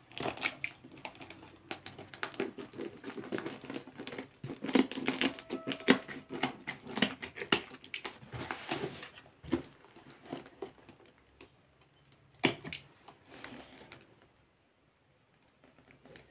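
Fingernails picking and scratching at packing tape on a cardboard box, a quick run of clicks and taps that thins out, with one sharp tap about twelve seconds in before it goes quiet.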